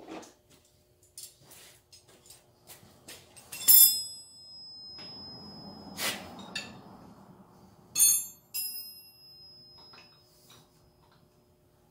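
Metal tools and parts clinking against a compact tractor's front axle as it is worked on by hand. Scattered small handling clicks, two sharp metallic clinks that ring on about four and eight seconds in, and a stretch of rustling in between.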